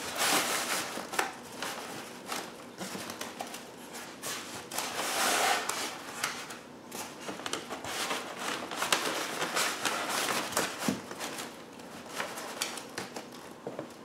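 A block of white foam packing being worked into a cardboard TV carton. The foam rubs and scrapes against the carton and the plastic wrap, with plastic rustling and small irregular knocks, and a longer scrape about five seconds in.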